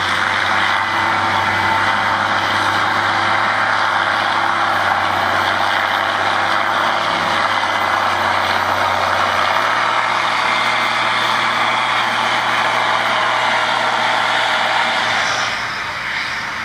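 Blue Ford farm tractor's diesel engine running hard under load while it pulls a weight-transfer sled, a loud, steady drone. Its pitch shifts once, about ten seconds in.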